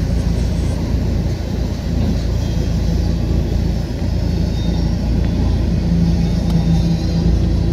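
Freight train rolling past at close range: a steady low rumble of the flatcars' wheels on the rails, with a steady hum that grows stronger in the last couple of seconds and a few faint ticks.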